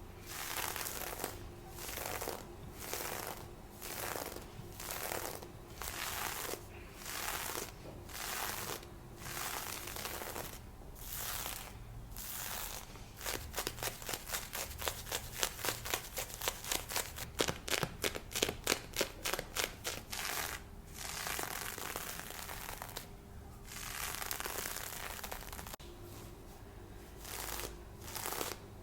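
Scratching and rubbing on lace fishnet stockings, recorded close on a binaural microphone. Slow even strokes about one a second, then a fast run of short scratches, about four or five a second, through the middle, then longer slower strokes again.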